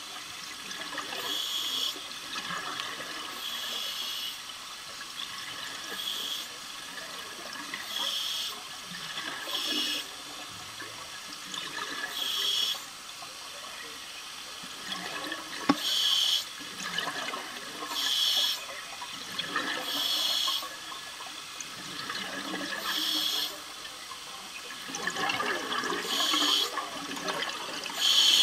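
A diver's breathing through a regulator underwater: a short hiss every two to three seconds, with bubbling between the hisses.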